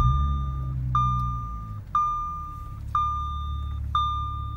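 Audi S4 B8's supercharged 3.0 V6 just fired up, its revs flaring and settling into a steady idle within the first couple of seconds. Over it a dashboard warning chime beeps five times, about once a second, each beep a clear single tone.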